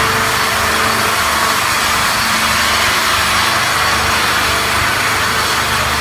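SB-4V-550 log-squaring machine running: a loud, steady mechanical noise over a low hum, with no breaks.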